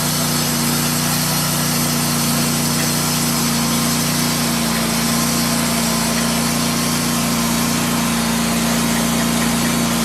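Gasoline engine of a Norwood portable bandsaw mill running steadily under load as its band blade saws through a spalted pecan log.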